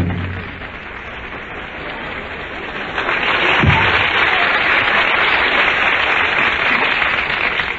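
Studio audience applauding as an orchestra number ends, the clapping swelling louder about three seconds in. It is heard on an old radio broadcast recording with a muffled top end.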